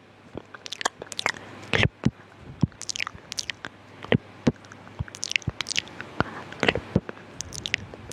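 Close-miked ASMR mouth sounds: irregular wet clicks, smacks and tongue pops, several a second, with no words.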